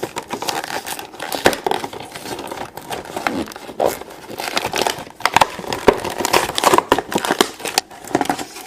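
Toy packaging being pulled open by hand: continuous crinkling and tearing with many irregular sharp crackles and snaps.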